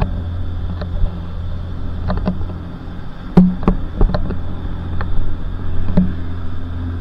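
Powerboat's engine running with a steady low drone, with a string of irregular sharp knocks over it, the loudest about three and a half seconds in.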